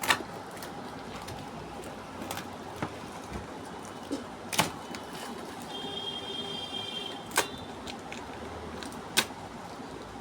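Several sharp knocks and clicks, about five spread over ten seconds, over a steady background rumble, with a short high steady tone a little past the middle.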